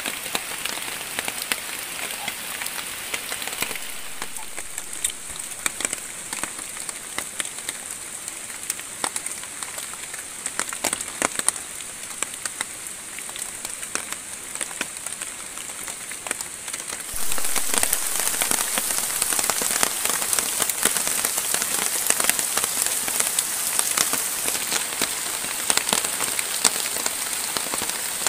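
Steady rain falling, with many separate drops striking close by. The rain gets louder about two-thirds of the way through.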